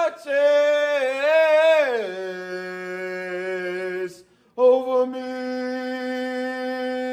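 A man singing a gospel hymn a cappella, with no instruments. He sings a wavering run that slides down into a low held note, takes a short breath about four seconds in, then holds a long steady note at a higher pitch.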